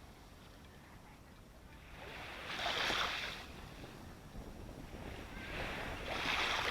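Ocean waves washing onto the shore: a quieter lull, then a wave surges in and washes back about three seconds in, and another builds near the end.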